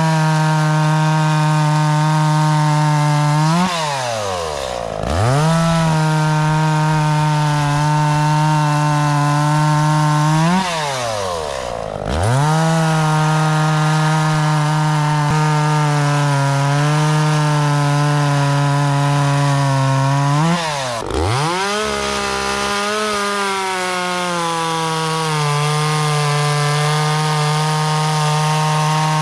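Echo CS-400 two-stroke chainsaw running at full throttle, cutting wood. The throttle is let off briefly three times, the engine note dropping and then climbing straight back up to full speed.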